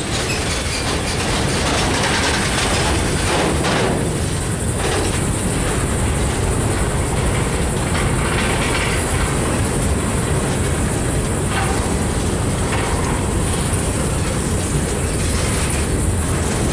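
Freight train's open-top hopper cars rolling slowly past, with a steady noise of steel wheels on rail and scattered clicks as the wheels cross the rail joints.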